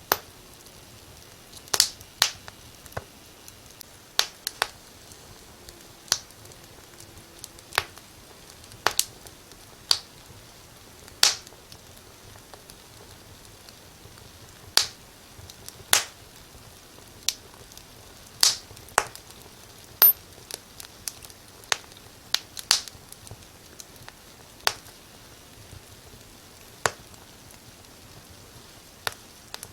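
Wood fire crackling in a fireplace: sharp, irregular pops and snaps of burning logs over a faint steady hiss.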